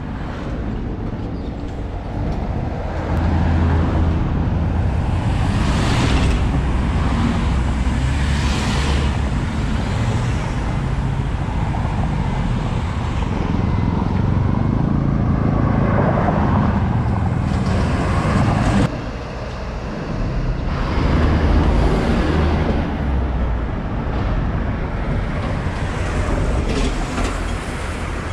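Road traffic: cars, vans and minibuses passing close by one after another, each swelling and fading over a steady rumble. The sound drops suddenly about 19 seconds in, then swells again.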